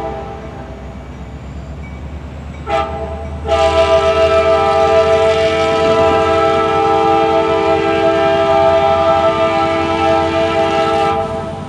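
Nathan K5LA five-chime air horn on a CSX GP40-2 locomotive: one blast cuts off at the start, then a short note about three seconds in swells into a long blast of about eight seconds. The locomotive's diesel engine rumbles underneath.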